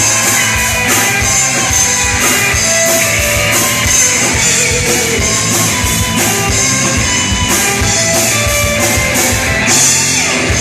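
Hard rock band playing live: guitar over a drum kit in an instrumental passage without vocals.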